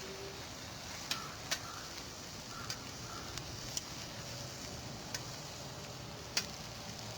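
Sausages cooking on a grill over campfire coals: a steady hiss broken by about six sharp, irregular pops and crackles.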